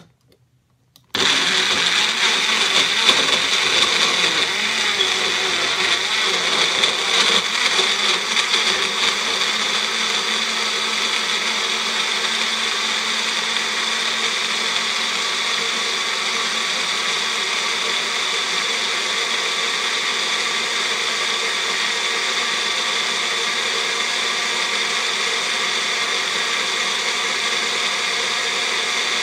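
Compact personal blender switching on about a second in and running continuously, blending whole tomatoes into juice. It is uneven for the first several seconds while it chops the tomato pieces, then settles into a steady whir once they are puréed.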